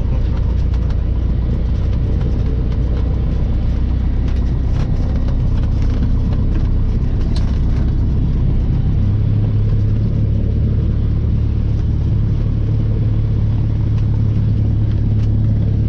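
Cessna 172's piston engine and propeller running at low power, heard inside the cockpit; the engine note steps up about nine seconds in.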